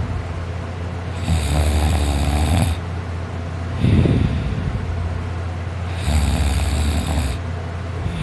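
A man asleep on his back snoring loudly: two long snores of about a second and a half each, with a brief breath sound between them.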